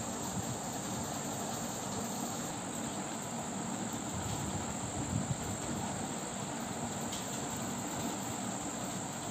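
Steady background ambience: a constant high-pitched chirring with hiss over a low rumble, and a couple of faint knocks about halfway through.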